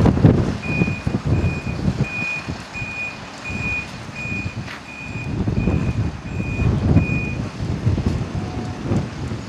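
Vehicle reversing alarm beeping, a single high tone repeated about ten times at roughly one and a half beeps a second, stopping about three quarters of the way through, over a low, uneven rumble.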